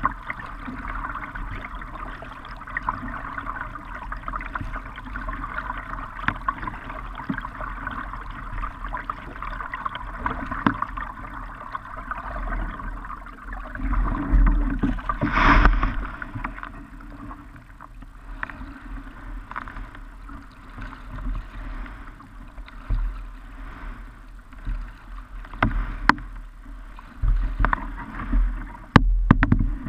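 Kayak moving on a river: water splashing and sloshing along the hull with paddle strokes, over a low rumble. There is a louder splash about halfway through, and a few sharp knocks near the end as the bow comes up against the bank.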